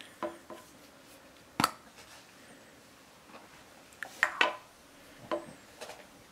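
Hard plastic cap of a cosmetic pump bottle clicking and knocking as it is pulled off and the bottle is handled: a handful of short, sharp clicks, the loudest about one and a half seconds in and a quick cluster of them around four seconds in.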